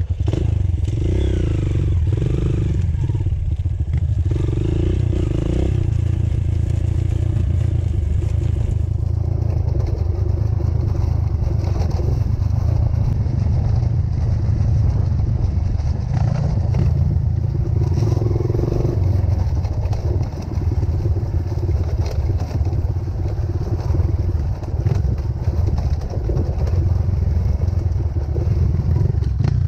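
Motorcycle engine running steadily under way, with rattling clatter.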